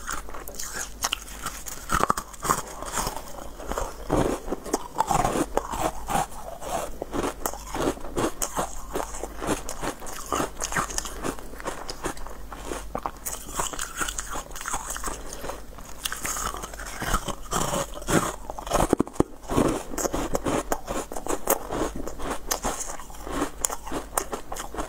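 Close-miked biting and crunchy chewing of hard pink moulded treats: a dense run of crisp cracks and crackles, with louder bites now and then.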